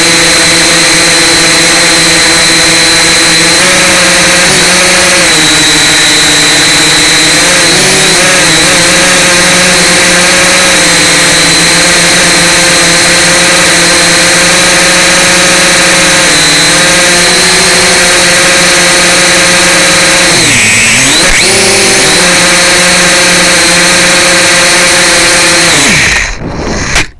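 X1-HD toy quadcopter's small electric motors and propellers whining loudly and steadily, heard close up through the drone's own onboard camera microphone. The pitch dips briefly a few times, most deeply about three-quarters of the way through. The whine drops away abruptly near the end.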